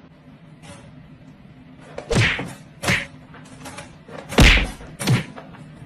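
A dog thrashing about in a plastic pet crate: four loud thumps and knocks, starting about two seconds in, the third the loudest.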